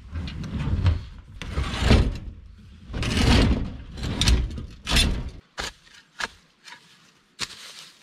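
Empty IBC tote, a plastic tank in a steel cage, being rocked and slid down onto cinder blocks: about five seconds of heavy hollow bumps and scrapes, then a few sharp knocks.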